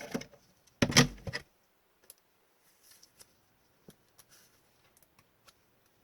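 Trading cards and their plastic holders being handled on a table: a short clatter with a low knock about a second in, then light scattered clicks and rustles.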